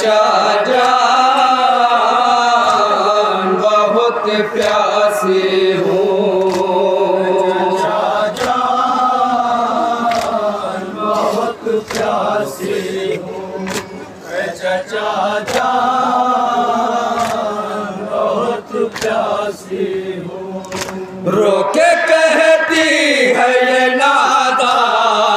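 Group of men chanting a noha (Shia lament) through microphones in long, held melodic lines, with short pauses between phrases. Sharp slaps from the mourners' chest-beating (matam) come through at intervals.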